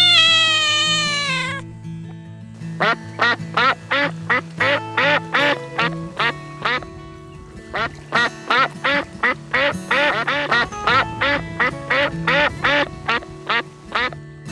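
A cat's long meow dies away in the first second and a half. After a short pause a duck starts quacking in a fast, steady run of about three quacks a second, over background music.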